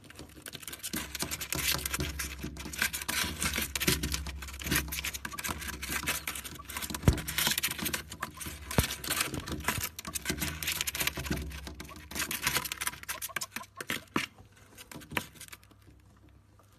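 Japanese quail scuffling and scratching in the sandy grit of its box floor: a dense, uneven patter of light scratchy ticks and rustles that thins out and fades near the end.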